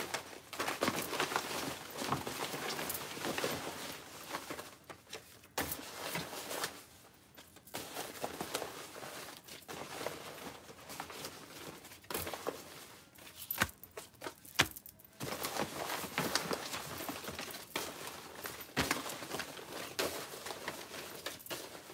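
Paper rustling and crinkling as hands dig through a fabric bin packed with tissue paper and folded paper slips, irregular, with a couple of short pauses.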